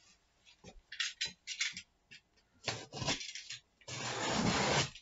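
Cardboard printer box being handled on a table: scattered rubbing and scraping, then a longer scrape lasting about a second near the end.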